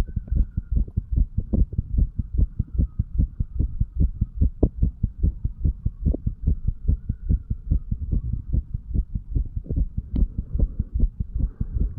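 Human heartbeat heard through the chest wall over the tricuspid valve area: a steady, regular train of low lub-dub thumps over a faint hum.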